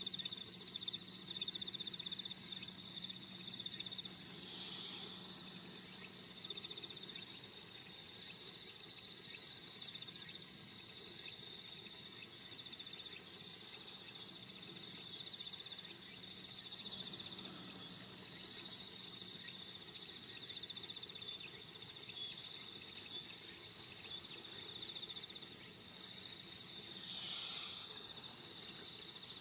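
Steady chorus of insects trilling, a continuous high pulsing buzz, with a few short high chirps over it.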